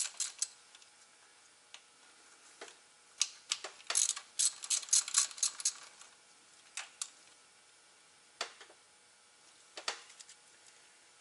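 Hand ratchet clicking in quick runs as 10 mm bolts are turned out, with a few single metal clicks and clinks between the runs.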